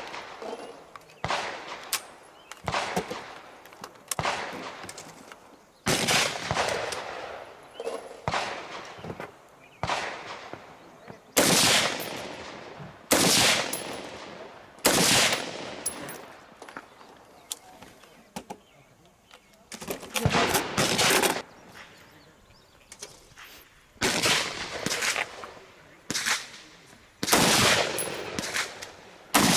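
Gunshots fired one at a time in a long, uneven series, about one every one to two seconds, each trailing off in a short echo, with a pause of a few seconds a little past the middle.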